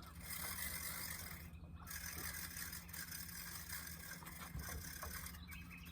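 The boat's motor running with a steady low hum under a faint hiss, at a slow trolling pace.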